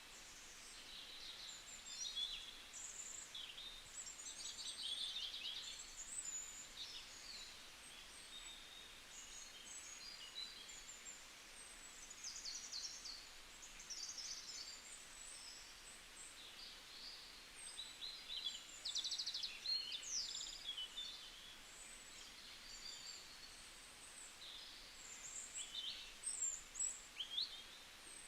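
Several birds singing and calling in a chorus of short chirps, trills and warbles, over a faint steady hiss of forest background.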